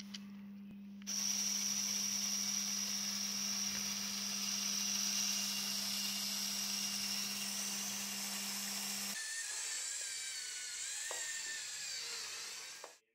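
Small electric motor and plastic gears of a Lego Technic model running with a high, steady whine. About nine seconds in the sound changes and the whine wavers up and down, then cuts off suddenly near the end.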